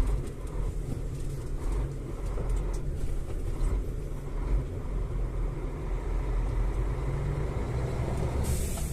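Truck engine running steadily at low revs, a constant low rumble heard from inside the cab while the truck waits to turn.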